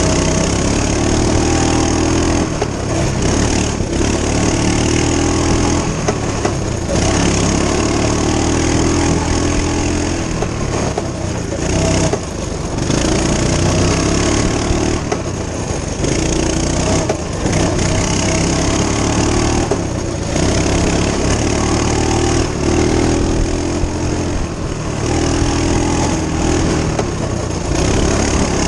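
Coleman CT200U-EX minibike's small single-cylinder four-stroke engine running as it is ridden, its note swelling and easing with the throttle, with short dips every few seconds. A steady rush of wind noise rides over the engine.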